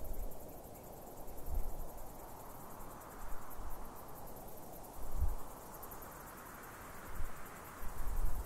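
Outdoor ambience: a wind-like rushing that swells and fades, with low rumbles, under a faint, fast, high chirring of insects.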